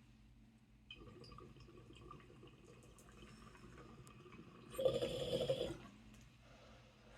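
Cardboard box and packaging being handled and opened, with a louder scraping, ripping burst about five seconds in.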